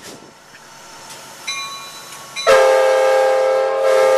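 Amtrak F59PHI diesel locomotive's multi-chime air horn, sounding one loud, steady blast that starts suddenly about halfway through.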